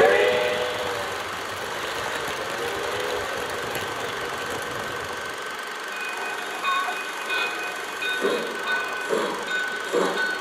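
Lionel O gauge steam locomotive sound: a whistle dies away in the first second, a steady running rumble follows, and from about eight seconds in slow chuffs come roughly once a second over a faint steady whine.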